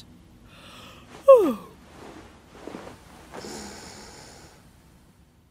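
A cartoon baby owl voiced sleeping: a short, falling sleepy sigh about a second in, then soft, breathy snoring sounds.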